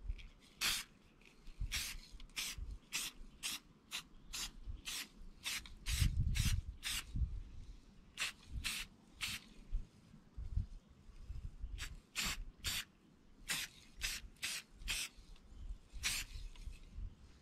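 Aerosol spray paint can sprayed in many short bursts, about two a second, in runs with short pauses. A low rumble about six seconds in.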